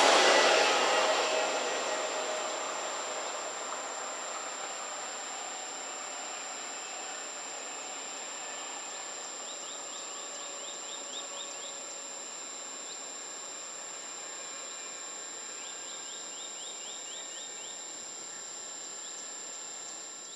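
An ÖBB Talent electric multiple unit running away from the listener, its rolling noise fading over the first couple of seconds into quiet rural background. A bird gives a quick series of short rising chirps twice, about ten and sixteen seconds in.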